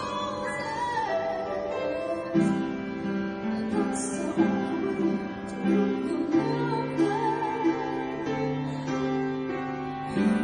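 A song accompanied by plucked, guitar-like strings, with a sung melody that wavers in pitch near the start and again about two-thirds of the way through.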